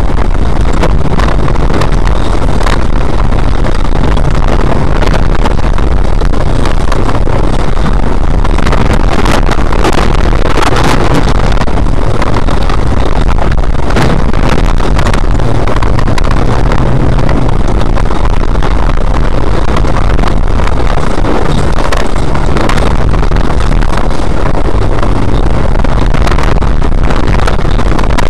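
Autocross car's engine running hard, its note rising and falling, loud and overloaded on the car's own in-car camera. Repeated knocks and rattles sound as the car bounces over the rutted dirt track.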